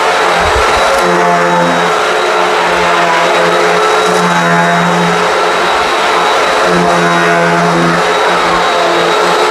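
Hoover WindTunnel High Performance upright vacuum running steadily on a dirty outdoor rug, with its brushroll agitating the pile. It gives a constant motor whine, and a lower hum comes and goes every second or two as the vacuum is worked across the rug.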